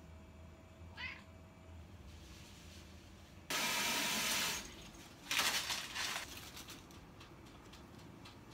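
A house cat gives a short squawking meow about a second in. A loud, even rush of noise follows for about a second, then a second, more uneven burst of noise.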